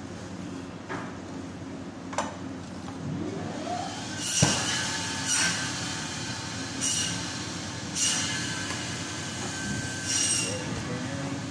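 A butcher's knife drawn through a beef round and scraping on a plastic cutting board, a short scrape with a thin metallic ring every one to two seconds. A thump about four seconds in is the loudest sound. A steady hum from the shop's ventilation runs underneath.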